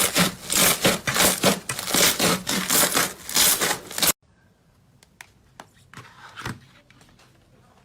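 Slime being worked by hand: rhythmic crunchy, scraping strokes, about two to three a second. They cut off suddenly about four seconds in, leaving a few faint clicks.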